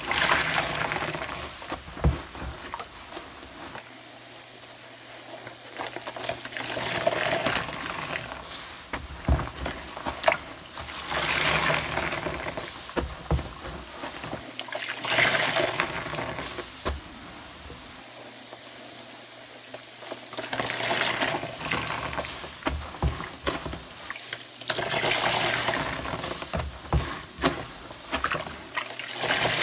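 Large soapy yellow foam sponge squeezed and wrung by hand in a tub of water, water gushing and dripping out of it in repeated surges a few seconds apart, with quieter pauses between squeezes and small wet clicks.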